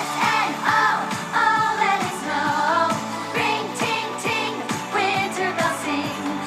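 Background pop song: a singing voice with vibrato over a steady beat.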